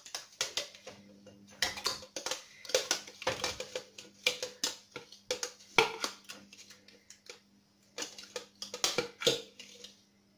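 Crushed-ice lemon slush being scooped from a grinder jug into a glass: a utensil clinks and scrapes against the glass and jug in irregular clusters of sharp knocks, which stop shortly before the end.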